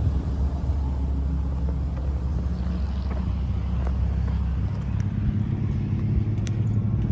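An engine running steadily, its low hum stepping up in pitch about two-thirds of the way through, with a few faint clicks near the end.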